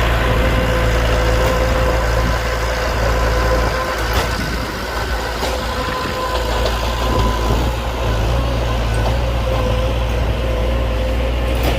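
Heavy engine of earthmoving machinery running steadily, with a low rumble and a steady whine over it.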